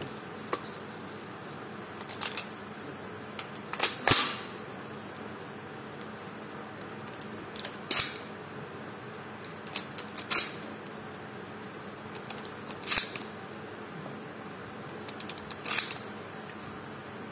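Derya Carina CMX-100 shotgun being handled: a string of sharp metallic clicks and clacks, about six of them a couple of seconds apart, the loudest about four seconds in.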